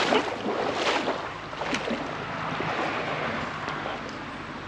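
Water splashing a few times in the first couple of seconds, over a steady rush of flowing river water.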